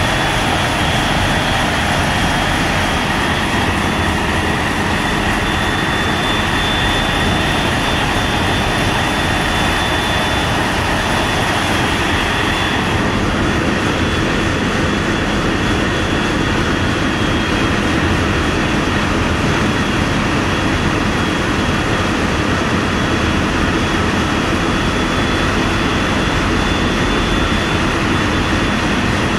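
Steady drone and rushing noise of a ship under way: engine running with a constant rush of air and water. The hiss eases slightly a little under halfway through.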